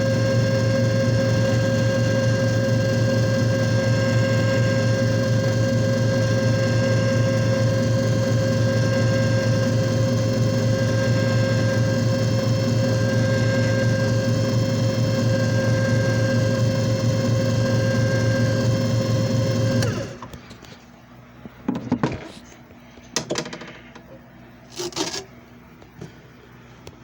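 JFJ Easy Pro disc repair machine running with a steady motor hum that stops abruptly about two-thirds of the way through. A few short knocks and clicks follow.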